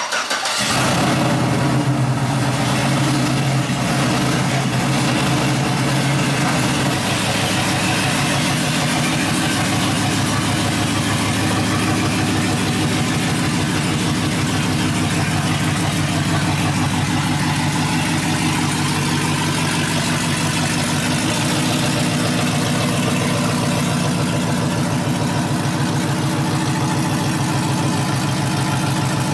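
Chevrolet Silverado pickup's engine running steadily at low revs, its pitch dropping slightly about seven seconds in.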